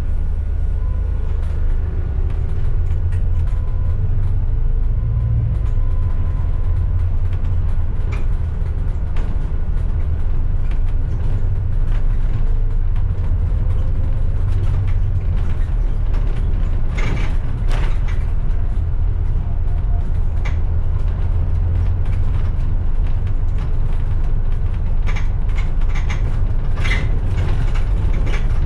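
A bus's engine running with a steady low drone as it drives, while loose fittings rattle and creak, in clusters of clicks about two thirds of the way through and again near the end.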